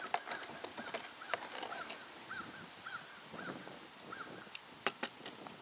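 A bird calling a run of short, identical notes, each rising then falling in pitch, coming slower and slower until they stop about four seconds in. Over it are sharp clicks and knocks of the steel scissor jack and its ratchet handle being handled, with two of the loudest knocks near the end.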